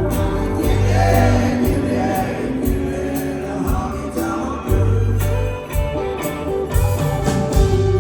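Live band playing a country song, with singing, guitar and a steady percussion beat over an on-and-off bass line.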